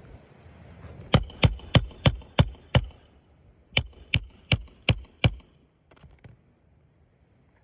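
Hammer driving roofing nails into shingles: about six quick ringing blows, a short pause, then about five more.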